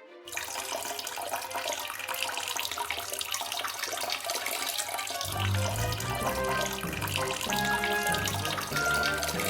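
Water running hard, starting suddenly just after the start, under background music that picks up a bass line about halfway through.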